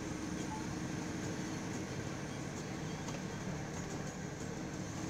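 Truck's diesel engine running steadily under road and tyre noise, heard from inside the cab while driving, with a low even hum.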